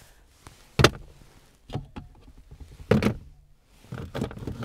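Knocks and clunks of small items being handled and set down in a pickup truck's cab, with two louder knocks about a second in and about three seconds in.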